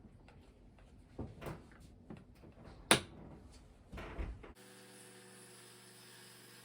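A few knocks and clicks of tools or workpieces being handled on a workbench, the loudest a single sharp knock about three seconds in. Near the end the sound switches abruptly to a steady hum with hiss.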